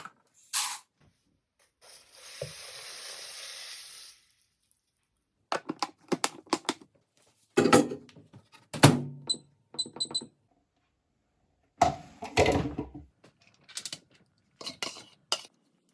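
Knocks and clatters of metal cooking utensils on a flat-top griddle in short, separate bursts, with a steady hiss lasting about two seconds near the start.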